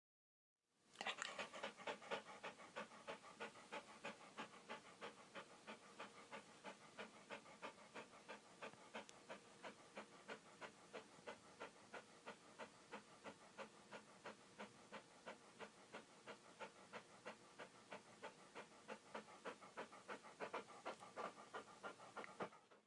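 A dog panting: quick, even, rhythmic breaths, fairly quiet, starting about a second in after a short silence and fading out near the end.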